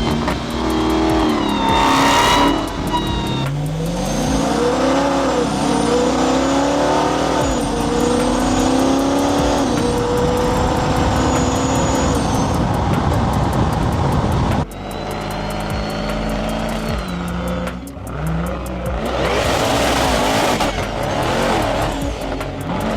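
Dodge Challenger SRT Demon's supercharged 6.2-litre V8 revving and pulling, its supercharger whine rising and falling in pitch with the revs. The sound cuts off abruptly about two-thirds of the way through and resumes at a lower level.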